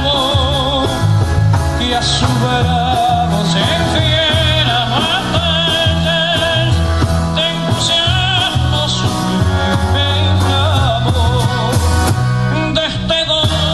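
Background music: a song with a singing voice over a steady, moving bass line.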